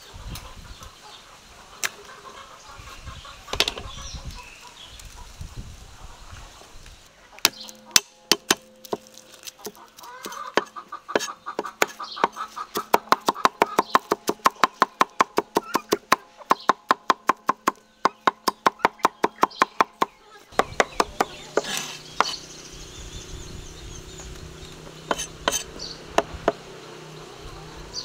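Food being chopped with a knife on a cutting board: a fast, even run of sharp strokes, about four a second, starting several seconds in and stopping about three-quarters of the way through, with a few scattered strokes near the end.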